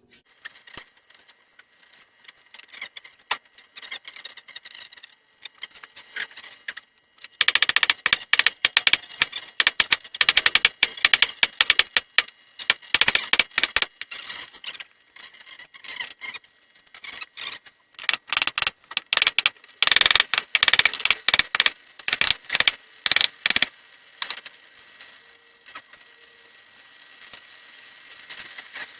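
Rapid metal-on-metal strikes on steel, in dense bursts through the middle stretch. This is likely hammering to taper a forged sword blade.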